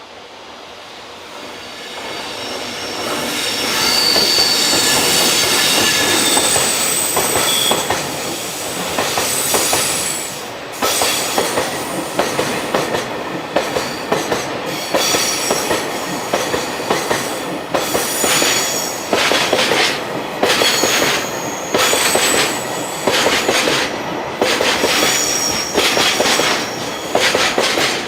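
Freight train passing: high-pitched wheel squeal grows louder over the first few seconds as it approaches. From about ten seconds in, the wagons go by with a regular clickety-clack of their wheels over the rail joints.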